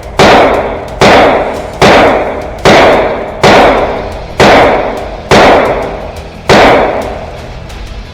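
Ruger 9mm pistol-caliber carbine firing eight shots at a steady pace of about one a second, each shot trailing off in a long echo.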